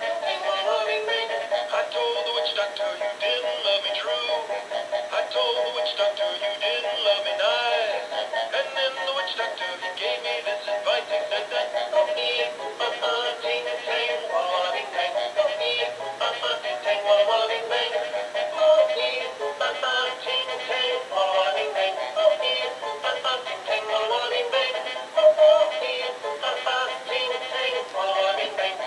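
Animated Halloween plush puppy toy singing a song with a music backing through its small built-in speaker. The sound is thin, with no bass.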